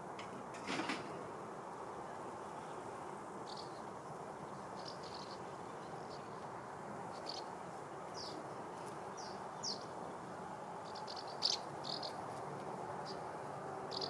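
Bumblebees foraging on lavender, a steady low buzzing hum, with a small bird chirping in short high notes again and again from a few seconds in. A brief louder sound comes about a second in.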